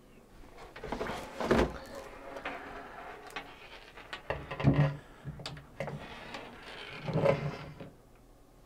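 Handling noise from an AIO liquid cooler being moved about on a desk: its radiator, pump block, tubes and cables rustle and knock softly, with a few louder knocks spread through.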